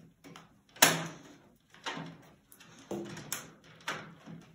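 The front door of an IBM POWER9 S914 tower server being pushed onto its side clips: a series of short, sharp clicks and knocks, about five in four seconds, the loudest about a second in.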